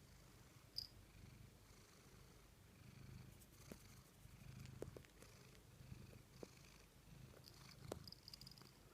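Tabby cat purring softly, a low purr that swells and fades with each breath about every second and a half, with a few faint clicks.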